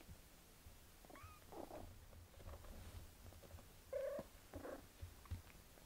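British Shorthair cats purring softly with a steady low pulse, with a faint high squeak about a second in and a short mew about four seconds in.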